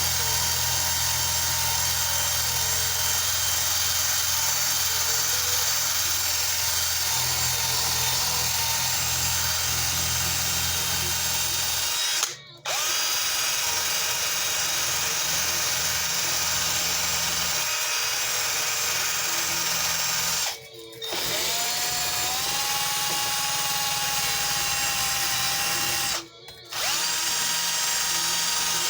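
Electric drill spinning an abrasive wheel against a cast iron tea kettle to strip rust, running steadily with a whine and letting off three times for a moment, near the middle and twice in the last third.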